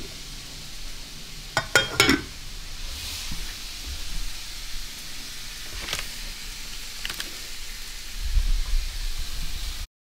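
Chicken frying in a thin layer of spray oil in a non-stick pan, sizzling steadily, with a few sharp clicks: a quick cluster of three about two seconds in and single ones around six and seven seconds. The sound cuts off suddenly just before the end.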